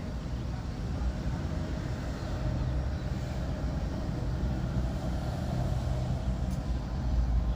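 A steady, low mechanical hum, like a motor or engine running, slowly growing a little louder.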